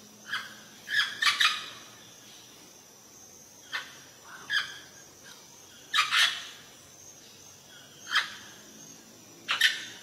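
Green parrot giving short, harsh squawks every second or two, some in quick pairs, over a faint steady hiss.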